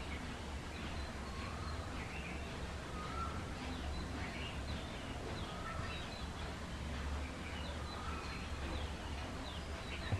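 Small birds chirping and calling in the background, many short chirps throughout, over a steady low hum.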